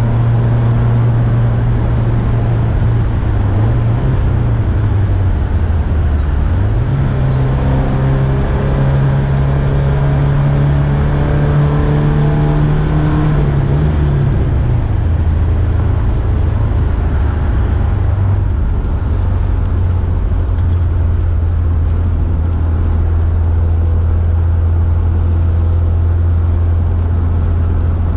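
A '79 Alfa Romeo Alfetta's engine heard from inside the cabin on the move. The revs climb about a quarter of the way in and hold, then ease off around halfway and settle to a lower, steady pitch.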